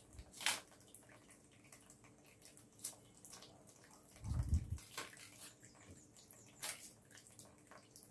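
Knife scraping and cutting the peel from a green plantain over a stainless-steel sink, with short sharp scrapes and light water splashing, and a dull bump about four seconds in.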